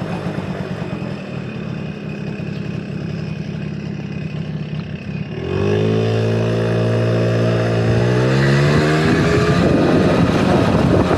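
Honda Motocompo scooter's 65cc big-bore two-stroke engine under way. About five and a half seconds in it suddenly revs up and its pitch climbs as it accelerates. Near the end a broad rushing noise takes over.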